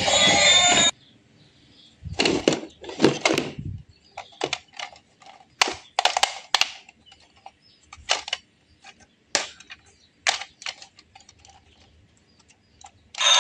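Music stops about a second in, then a string of irregular sharp clicks and knocks from hard objects, the loudest and longest between about two and four seconds in, with quiet gaps between them.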